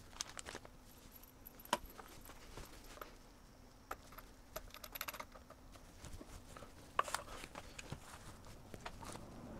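Scattered light clicks and knocks of plastic and metal parts being handled: the connecting cord's plug is pushed into the soldering station and the plastic iron holder is moved, with two sharper clicks about two seconds in and near the seven-second mark.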